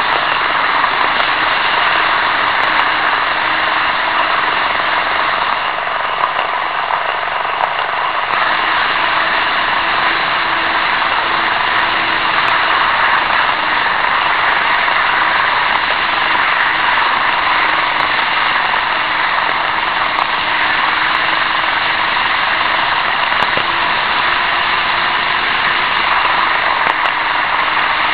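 N-gauge model trains running, heard from a small camera riding on a moving freight wagon: a steady rolling rattle of wheels on the track with the hum of the small electric motors. A faint low tone wavers slightly in pitch.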